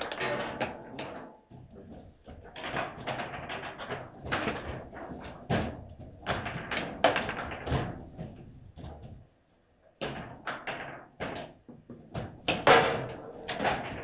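Table football in play: an irregular run of sharp clacks and knocks as the ball is struck and passed by the rod-mounted figures, with a brief lull a little over two-thirds through.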